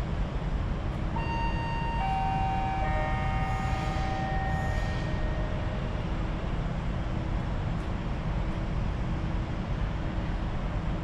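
Low steady rumble of a train approaching a station platform. From about one to five seconds in, a descending three-note chime sounds, each note ringing on briefly.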